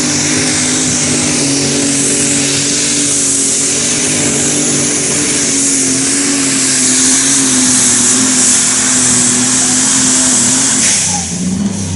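Fendt 936-based Superstock pulling tractor's turbocharged diesel engine running flat out while dragging the weight sled down the track, a steady engine note under a loud high hiss. The sound drops off about eleven seconds in as the pull ends.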